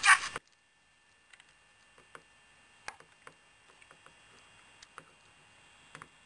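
Small, irregular clicks and taps from a plastic sound keychain being handled, after its electronic sound clip cuts off abruptly about half a second in.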